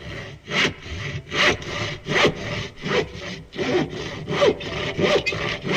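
Rhythmic back-and-forth scraping, a little more than one stroke a second, each stroke with a short falling squeal, of the kind a hand saw makes cutting wood.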